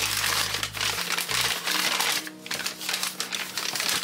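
White wrapping paper crinkling and rustling as it is pulled open by hand to unwrap a package, over background music.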